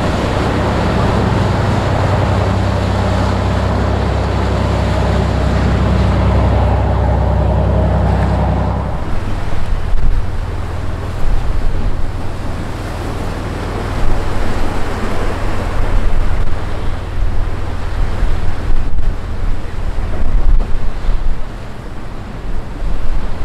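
A large party fishing boat's engines droning steadily as it runs close past, over the rush of its wake. About nine seconds in this cuts off abruptly to gusty wind buffeting the microphone over the sound of waves.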